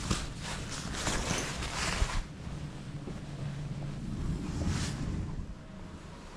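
Rustling and handling noise, as a hand moves fabric and the camera: several rushing bursts in the first two seconds and one more near the end, over a low steady hum.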